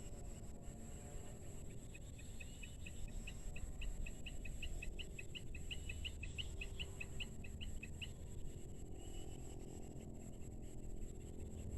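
A bird calling in a quick series of short, high chirps, about four a second, growing louder for several seconds and then stopping, over a low rumble of wind on the microphone.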